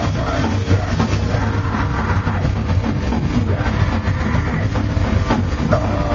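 Heavy metal band playing live and loud: distorted electric guitars and bass over a drum kit, with the vocalist singing into a handheld microphone.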